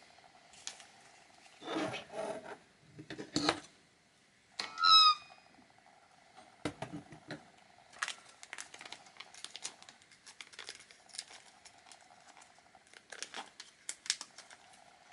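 Handling noises from work on an electronics board: scattered light clicks and rustling, with a short squeak about five seconds in, over a faint steady hum.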